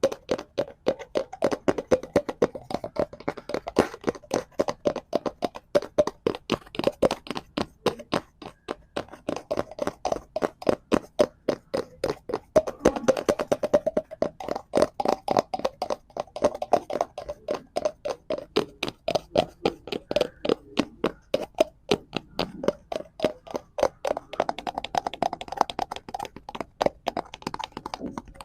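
Fingers tapping rapidly and steadily on a cardboard prop, several taps a second, keeping up an unbroken run of short knocks.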